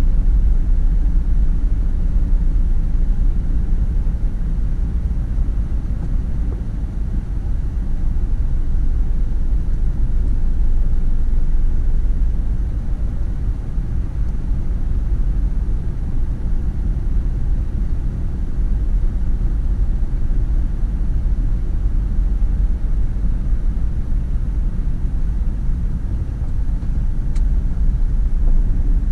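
A car driving, with a steady low rumble of engine and road noise that swells and eases slightly.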